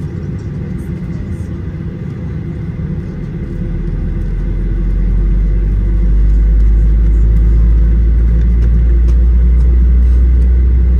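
Boeing 737-800 cabin noise heard from a window seat: a steady rumble that swells into a deep, loud rumble about four seconds in and then holds, as the CFM56 engines come up to thrust for the takeoff roll.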